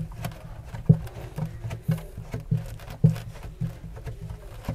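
A pipe fitting knocking against the filter drum as it is twisted into the hole, about two low knocks a second.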